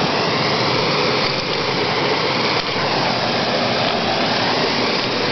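Steady rushing noise of running water, unchanging in loudness.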